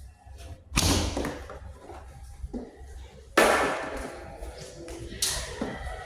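Three loud thumps, about a second, three and a half and five seconds in, each dying away briefly, over a low steady hum.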